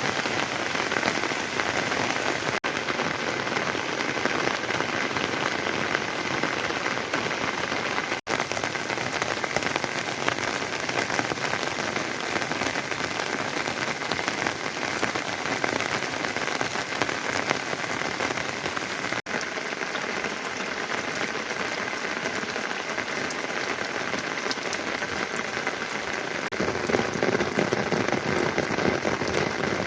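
Steady rain falling, a dense even patter of drops. The sound cuts out for an instant three times, and near the end the rain turns fuller and louder.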